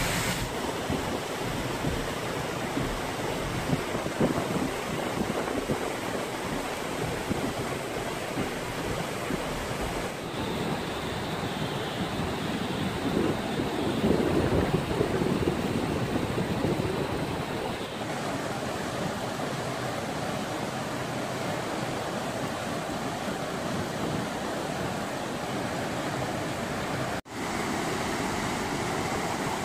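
Rain-fed flash flood: muddy water rushing steadily down a rocky gully and pouring over a concrete road culvert, with a momentary cut-out near the end.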